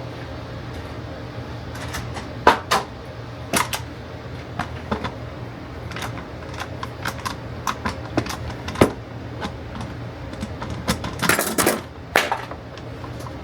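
Workshop handling noise: irregular light clicks and knocks of wood pieces and tools being handled and set down, over a steady low hum. A short cluster of louder knocks comes near the end.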